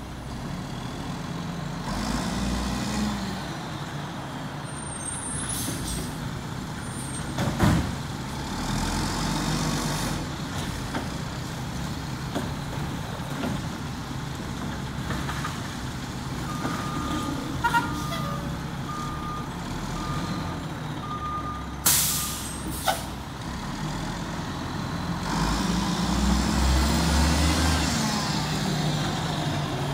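Mack MR McNeilus side-loader garbage truck's diesel engine running as the truck turns around, with a run of reversing beeps a little past the middle and a few short air-brake hisses. The engine pulls louder near the end as the truck moves off.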